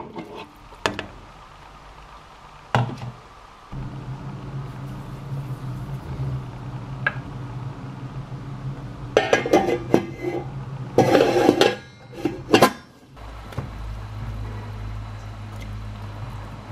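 Pots, dishes and metal utensils clattering and clinking: a few separate knocks, then a few seconds of busier, louder clatter in the middle, over a steady low hum.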